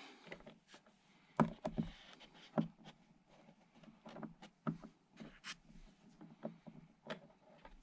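Scattered light clicks and knocks of small plastic and metal parts being handled as a screw is fitted into the servo arm of an elevator linkage. The sharpest click comes about a second and a half in.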